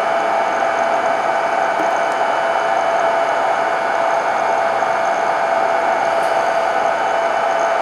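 Small electronics cooling fans in a Biqu B1 3D printer running steadily: an even whir with a steady whine.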